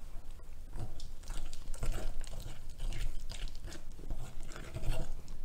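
Metal fork stirring a stiff paste of powdered sugar and milk for icing in a glass bowl: a quick, irregular run of scraping and tapping strokes against the glass, starting about a second in.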